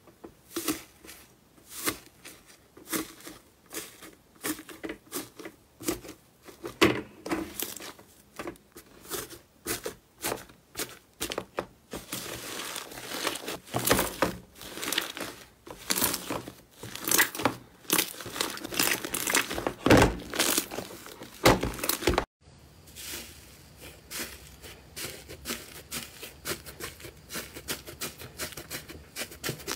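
Hands pressing and kneading iceberg slime studded with foam beads: dense crackling, crunching and sticky tearing as the dried crust breaks and the beads are squeezed, busiest about two-thirds of the way through. After a short break, finer, quieter crackling as a finger presses into a grey crusty slime.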